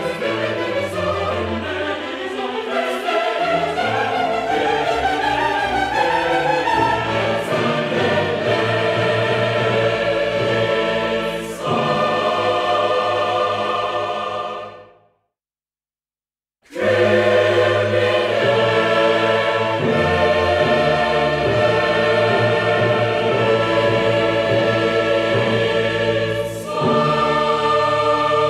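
Choral music with orchestral accompaniment, sustained voices singing over strings. About halfway through it fades out into a couple of seconds of silence, then the choir and orchestra start again.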